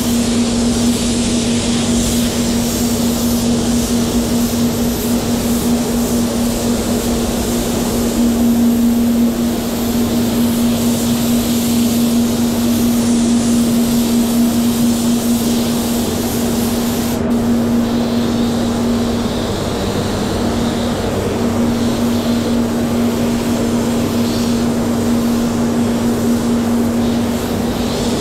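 SATA X5500 compressed-air spray gun hissing as it sprays water-based metallic base coat, over a steady low hum. The hiss breaks off sharply about 17 seconds in, then comes and goes in shorter passes.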